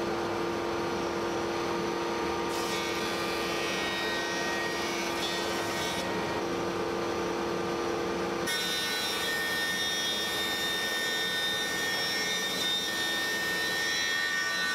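Thickness planer running as a glued-up alder panel is fed through to bring it to final thickness. The sound turns harsher and higher twice while the board is under the cutterhead: a short pass a few seconds in, then a longer one from about halfway to near the end.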